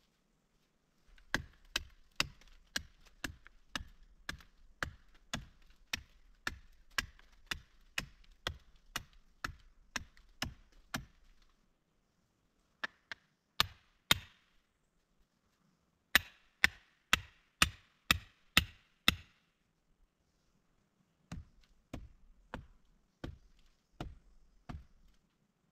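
Sharp chopping strikes, two to three a second, in four runs with short pauses between; the longest run lasts about ten seconds.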